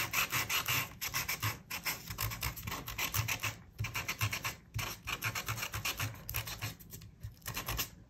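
Fine-grit sandpaper rubbed back and forth over a thin cardstock die cut: a quick run of short scratchy strokes, several a second, with brief pauses.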